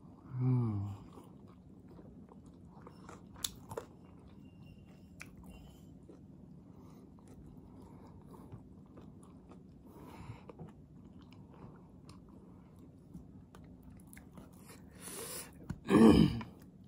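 A person chewing steamed chicken momos close to the microphone, with soft, faint mouth and chewing noises. About half a second in there is a short low hum that falls in pitch. Near the end there is a much louder sound as another momo is bitten into.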